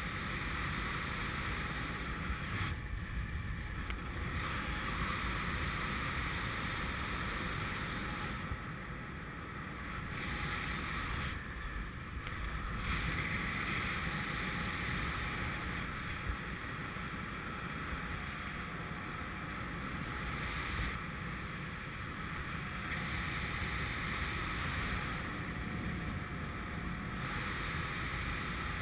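Wind rushing over a GoPro's microphone in paraglider flight: a steady noise that dips and swells a little every few seconds.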